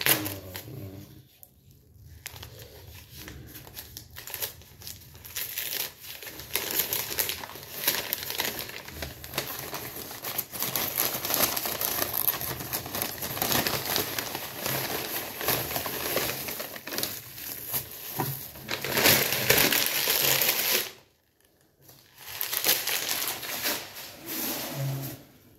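A bag crinkling and rustling as it is folded and handled, in a dense run of small crackles that breaks off for about a second near the end.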